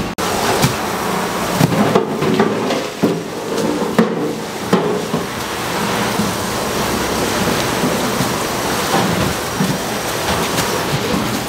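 Plastic-wrapped packs of rice cakes lifted out of a cardboard box and set down on a wooden counter: knocks and rustles over a steady hiss, with the knocks mostly in the first half.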